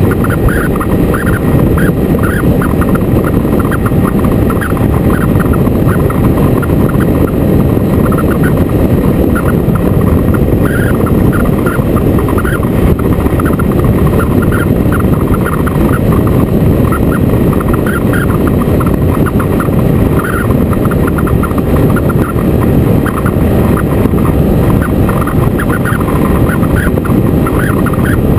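Motorcycle on the move heard from an on-board camera: a steady, loud rumble of wind on the microphone with the engine running underneath, no change in pace.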